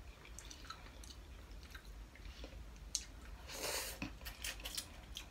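Faint chewing and wet mouth sounds of someone eating instant ramen noodles, with small smacks and clicks, and a short slurp of noodles about three and a half seconds in.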